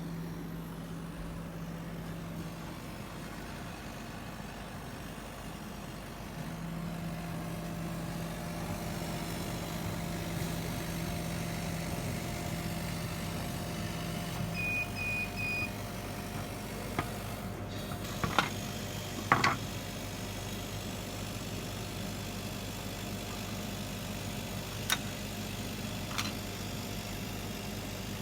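KAMACH 6090 HYPE CO2 laser machine running with a steady mechanical hum, and a low motor tone that cuts out, comes back and stops again. About halfway there are three short electronic beeps, followed by several sharp clicks and knocks.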